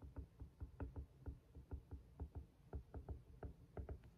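Stylus tapping and writing on a tablet screen: a faint, irregular run of light taps, about five a second.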